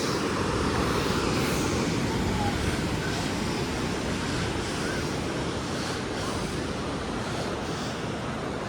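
Pacific Ocean surf washing steadily onto the beach, with wind buffeting the microphone.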